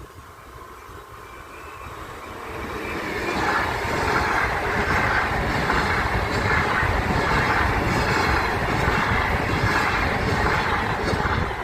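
Train passing close by at a level crossing. The noise builds over about three seconds, then runs loud and steady with a regular beat of wheel clatter.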